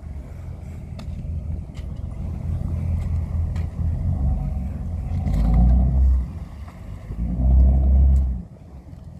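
Fire boat's engines running as it manoeuvres to dock, a low rumble that swells twice in the second half as the throttle is worked, then eases off near the end.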